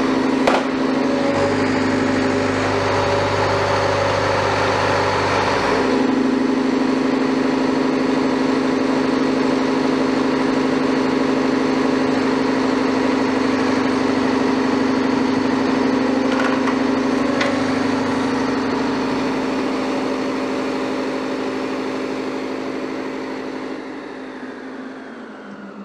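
Diesel engine of a Liebherr wheeled excavator running steadily, with one short knock about half a second in and a slight change in the engine note around six seconds in. The sound fades out near the end.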